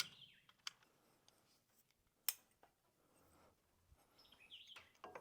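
Near silence broken by a few short, sharp clicks, the loudest about two seconds in, and faint brief squeaks.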